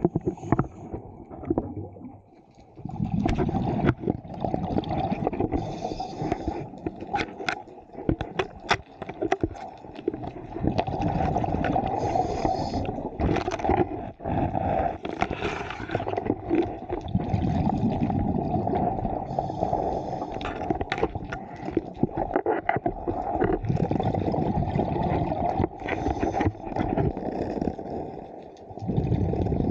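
Scuba diver breathing through a regulator underwater: a short hiss of inhalation about every six or seven seconds, and long gurgling streams of exhaled bubbles in between, with many small clicks.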